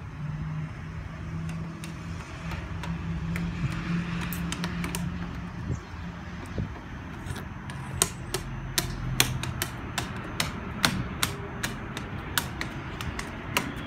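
A thin stick tapping on the wooden slats of a bench: sharp, irregular taps, a few scattered at first, then coming about two a second from halfway through. A low steady hum runs under the first half and fades out.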